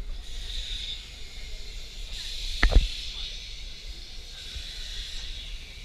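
Vintage electric tram running along its track, heard from the open top deck: a steady hiss over a low rumble, with one sharp thump a little under three seconds in.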